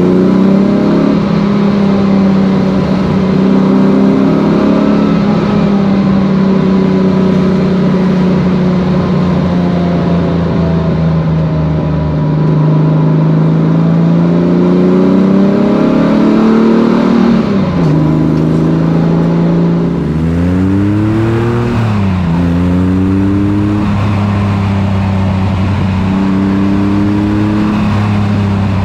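1965 Chevrolet Corvair Monza's air-cooled flat-six engine, freshly rebuilt with a hotter camshaft and a new exhaust system, running as the car is driven. The engine note holds steady, drops away about two-thirds of the way in, then rises sharply and settles again. In the last part it is heard close to the tailpipe.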